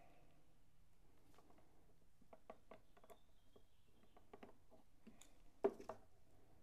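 Faint clicks and light metallic taps from brass phonograph gears and a steel shaft being handled in a steel V-block, with one sharper metal clink near the end.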